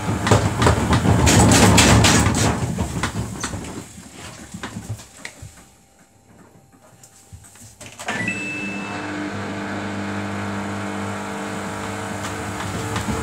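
Samsung WF80F5E0W4W washing machine spinning an extremely unbalanced load in service mode: the drum knocks and rattles at speed, then runs down until the machine is almost quiet. About eight seconds in the motor starts a new spin, a steady hum with a whine that builds slowly.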